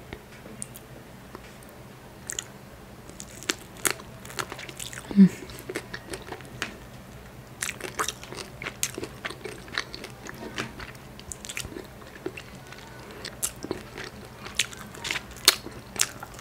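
Close-up eating sounds of a person chewing and biting crab meat: many short, sharp wet clicks and crunches. A brief low hum about five seconds in.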